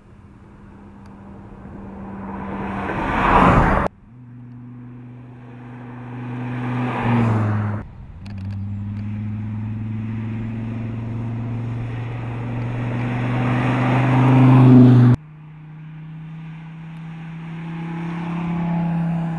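Dodge Viper SRT's 8.4-litre V10 engine running under load in a series of cut-together shots. Each shot swells in loudness and then cuts off suddenly, about four seconds, eight seconds and fifteen seconds in. A longer steady drone in the middle builds gradually.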